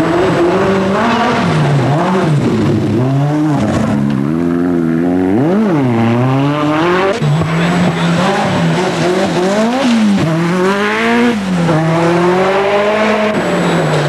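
Group B Ford RS200 rally car's turbocharged four-cylinder engine driven flat out, its revs climbing and dropping again and again, with one sharp rev rise and fall about five and a half seconds in.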